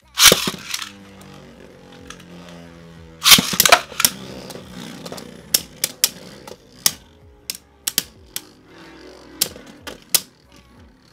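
Two Beyblade Burst tops, Strike Valtryek V3 and Doomscizor D3, in a plastic stadium. A loud clatter comes just after the start and a louder rip about three seconds in as they are launched. Then they spin with a steady whir, knocking together in about nine sharp clacks.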